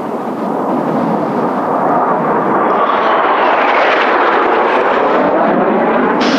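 Kawasaki T-4 jet aircraft flying low past, the turbofan noise growing steadily louder and higher as it approaches, with a sweeping, phasing whoosh near the middle.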